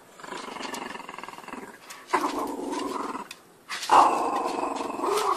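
Small dog growling in a playful tug-of-war over a rubber ring toy: three long growls, the last one the loudest.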